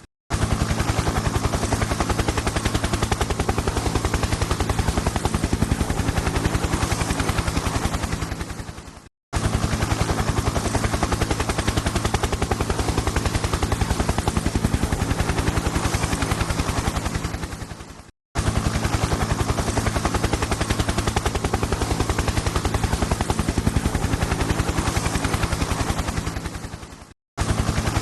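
Helicopter rotor chopping in a fast, even beat over a steady low engine hum. The sound fades out and stops briefly three times, each time starting again at full level.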